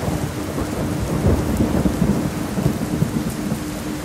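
Steady rain falling, with a low rumble of thunder that builds about a second in and fades out near the end. A steady pulsing tone sits beneath it.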